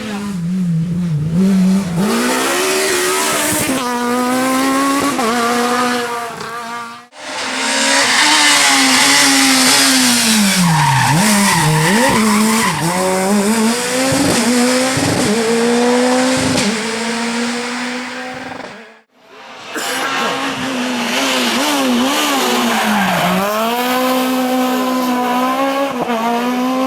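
Naturally aspirated four-cylinder rally car engines at full throttle, revving hard up through the gears and dropping back on gear changes and braking, over three runs split by two brief breaks.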